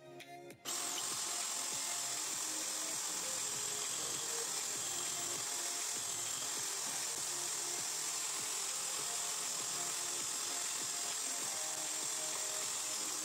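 Background music over the steady whine of a corded electric hand drill running in a drill-press stand.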